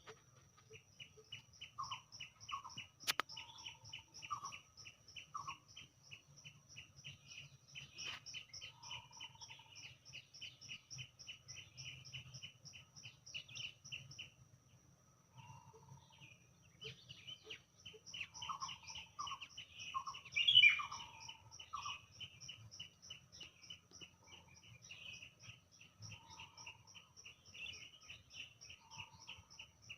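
Several birds singing together. Fast runs of high, repeated chirps overlap with shorter, lower calls, and one call stands out loudly about two-thirds of the way in. A sharp click sounds about three seconds in.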